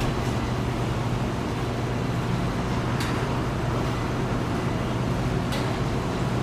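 Steady low hum of running factory machinery with a noisy wash over it, broken by two short sharp clicks, about three seconds in and again near the end.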